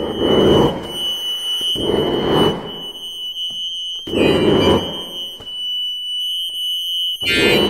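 Chromatic button accordion playing in a contemporary extended-technique style: a thin, high held note sounds throughout, while four short, noisy swells push in and die away about every two seconds.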